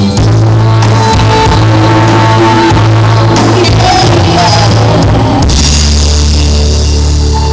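Live pop-rock band playing a ballad: singing over bass, keyboard and drums, loud. About five and a half seconds in, the bass drops to a lower note and a cymbal wash comes in.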